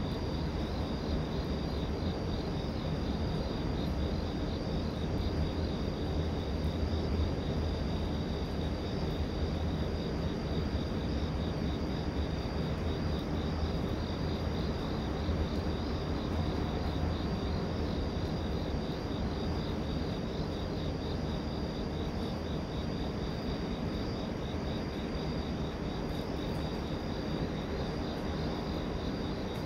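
Crickets chirping in an even pulse, over the low rumble of a distant train that eases off in the second half.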